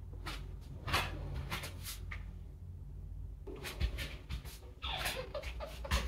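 Rustling and handling noises of cloth being moved, in short bursts in the first two seconds and again more busily in the second half, over a low steady hum.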